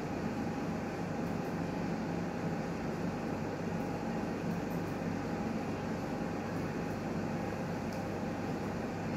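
Newmed Kronos S benchtop steam autoclave running a sterilisation cycle: a steady mechanical hum with a few constant low and middle tones that do not change.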